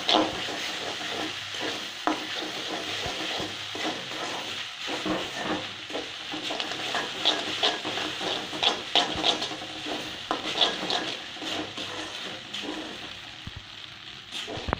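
Boiled noodles with onion and potato stir-frying in hot oil in a metal karai: a steady sizzle, with a metal spatula repeatedly scraping and clicking against the pan.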